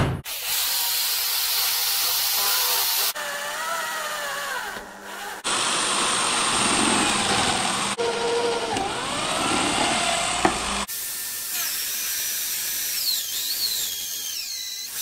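Electric drill mounted in a drill stand boring holes through flat steel bar, its pitch wavering up and down as the bit cuts. The sound changes abruptly several times between short takes of drilling.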